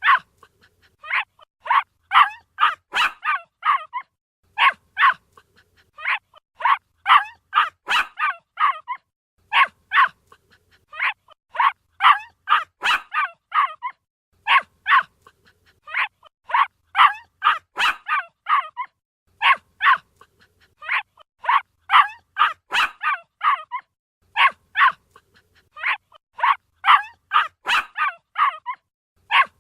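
Puppy barking in quick bursts of several short, high yips, each burst followed by a brief pause, over and over.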